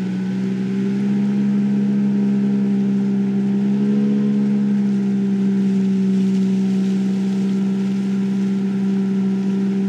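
Jet boat's motor running at a steady speed, a constant hum that holds one pitch throughout.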